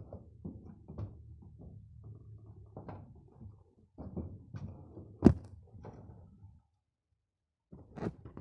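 Scattered knocks and thumps over a low rumble, with one sharp, loud knock about five seconds in. The sound cuts out completely for about a second, then a quick run of sharp clicks and knocks starts near the end.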